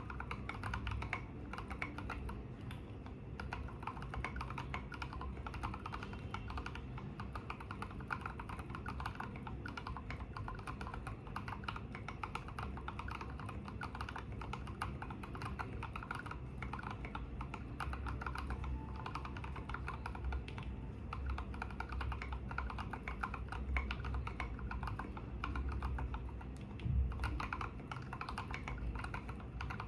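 Fast, continuous typing on an IDOBAO ID80 mechanical keyboard with lubed Durock Koala tactile switches (67 g) and SA keycaps: a dense stream of deep, thocky key strokes, with one heavier stroke near the end.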